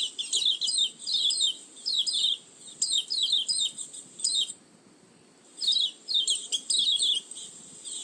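White-eye (pleci) lure call: quick high-pitched twittering chirp phrases, repeated about every half second, with a break of about a second just past halfway.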